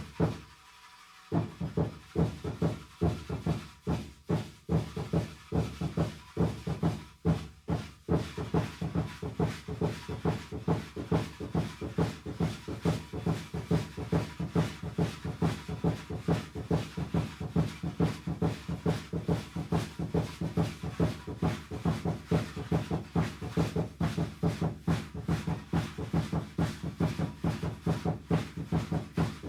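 A drum beaten in a fast, steady beat to accompany Aztec dancing. It breaks off for about a second near the start, then keeps an unbroken pulse of several strokes a second.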